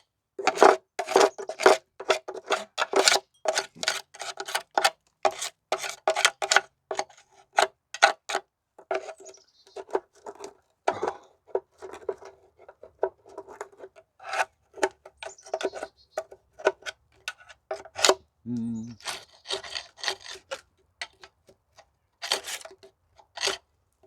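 Hand tool scraping and picking at melted plastic and burnt debris on a fire-damaged diesel cylinder head: quick, irregular scrapes, many with a light metallic ring. There is a short low pitched sound about 18 seconds in.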